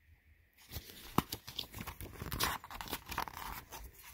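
Paper pages of a picture book being turned by hand: rustling and crinkling with scattered clicks, starting about half a second in, with one sharp click about a second in.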